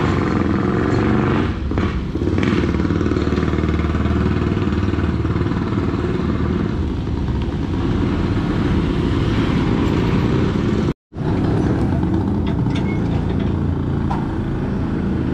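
Steady low rumble of motor vehicles running nearby on the street, breaking off for a moment about eleven seconds in, then continuing.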